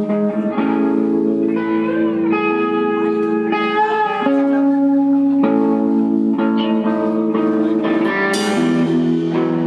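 Live band playing, led by guitars ringing out sustained chords that change every second or two, with a sudden crash near the end.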